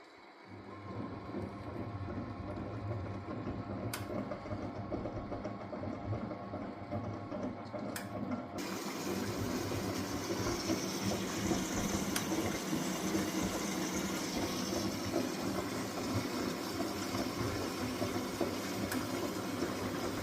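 Miele W423 washing machine running: a low hum with two clicks about four seconds apart, then, about eight and a half seconds in, water rushing in as the machine fills.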